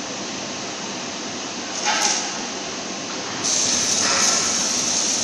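Gas hissing at a CNC oxy-plasma gantry cutting machine. A steady hiss is broken by a short sharper hiss about two seconds in, then grows louder and higher about three and a half seconds in.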